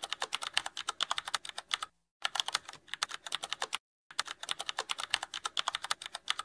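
Typing sound effect: rapid key clicks at about ten a second, in runs that stop briefly about two seconds in and again about four seconds in.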